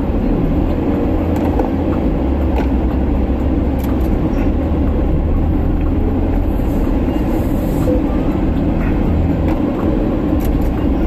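Porsche Macan cabin noise while driving a rough dirt trail: a steady low rumble from the tyres and running gear, with a few faint clicks and knocks scattered through it.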